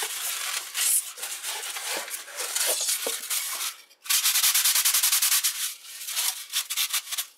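Styrofoam packing block being worked loose and pulled out of a cardboard box, scraping and rubbing against the cardboard; a dry scrape, not the squeaky kind of foam. About four seconds in comes a loud, rapid rasping that lasts a second and a half.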